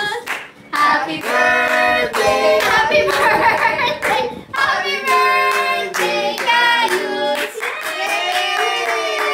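Several voices singing together, with hands clapping along.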